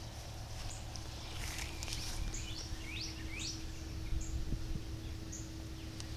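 Songbirds chirping, with short high chirps throughout and a run of quick rising notes about two to three and a half seconds in, over wind rumbling on the microphone.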